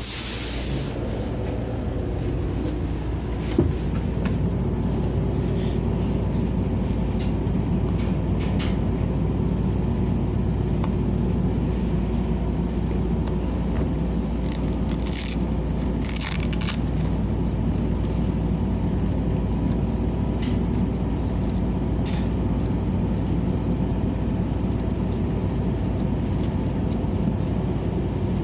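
Cabin noise of a New Flyer XN40 compressed-natural-gas city bus driving: the engine runs steadily under a constant rumble of road noise, with a short hiss right at the start and occasional clicks and rattles from the cabin.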